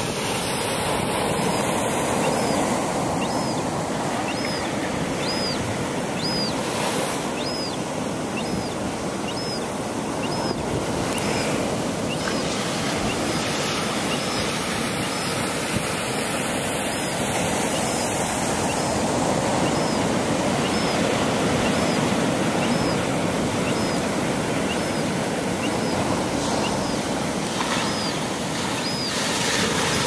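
Ocean surf breaking and washing against the rocks, a steady rush. Over it, a young gull's thin, high begging cries repeat about once a second, fainter than the waves.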